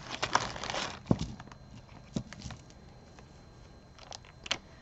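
Beaded jewelry being handled and set down: a quick run of small clicks and rattles in the first second or so, then a few scattered single clicks.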